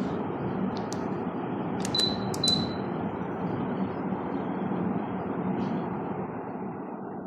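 Sapphire FM-1319DC DC ceiling fan running with a steady rush of air. About two seconds in come two short high beeps. Near the end the air noise gradually fades.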